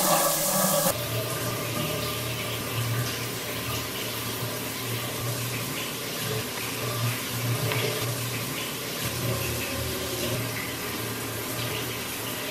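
Overhead rain shower head running: a steady spray of water falling onto the tiles, a little louder for about the first second, then even.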